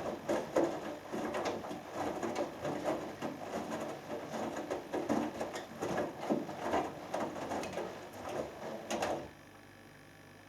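Hoover Dynamic Next washing machine drum tumbling wet laundry in the main wash, with water sloshing and soft knocks. The tumbling stops suddenly about nine seconds in, leaving a faint low hum.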